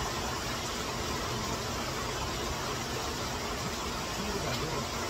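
Steady, even hiss of heavy rainfall mixed with rushing water from a swollen stream.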